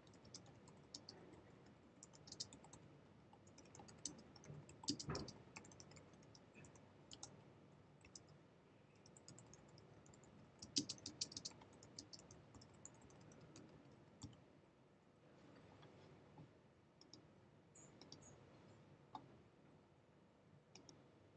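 Faint typing on a computer keyboard: irregular runs of key clicks with pauses between them.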